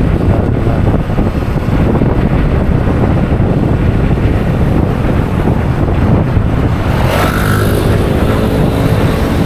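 Motorcycle riding along a road, its engine running under a heavy rumble of wind on the microphone. About seven seconds in, a clearer, steady engine note with a distinct pitch comes through the noise.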